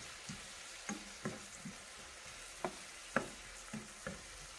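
Chopped tomatoes, onions and peppers sizzling softly in a frying pan as a spoon stirs them, with irregular light clicks of the spoon against the pan.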